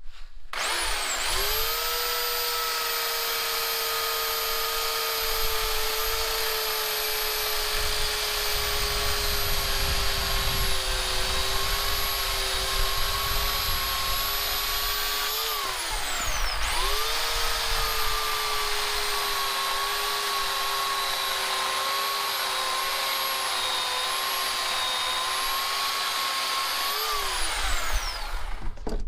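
Bauer 14.5-amp corded electric chainsaw run twice, each time spinning up to a steady high whine with a chain-cutting rasp and then winding down. It cuts through wood, with the pitch sagging only slightly under load: it does not bog down.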